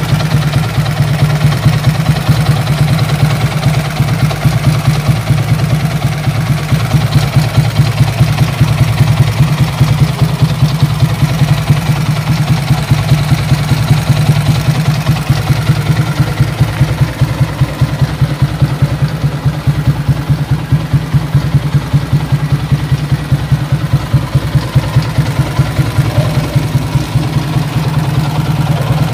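Yamaha Sniper MX135 single-cylinder engine, bored out to 177cc, idling steadily through an aftermarket Kalkal exhaust pipe, with a loud, regular exhaust beat during its warm-up.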